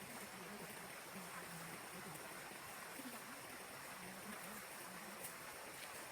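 Steady, even rushing background noise with faint distant voices.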